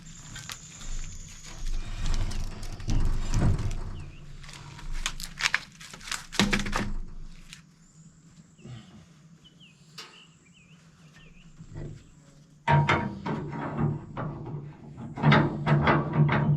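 Irregular knocks and clatter of cedar logs and boards being handled, with a tractor engine running steadily underneath in the last few seconds. Birds chirp briefly in a lull.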